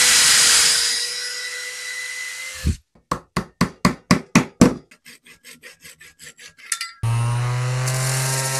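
Cordless drill running as it bores through plywood, easing off after about a second and stopping after almost three. Then a quick run of about a dozen knocks as a dowel is driven into the hole, fading to lighter taps, and from about seven seconds in a random orbital sander runs steadily.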